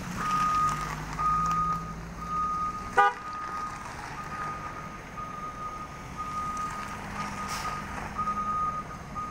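A vehicle's reversing alarm beeps steadily, about one long beep a second, over the low hum of truck engines on the move. A brief sharp blip about three seconds in is the loudest moment.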